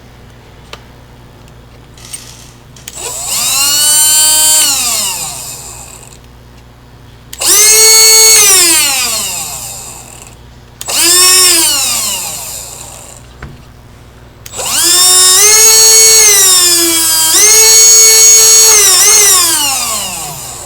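Milwaukee M18 cordless leaf blower's motor and fan spinning up to a high whine and coasting back down, four times in a row, as a test run after a repair to its speed switch. The first run builds up gradually, the next two start abruptly, and the last holds at speed for about six seconds with a brief dip in the middle.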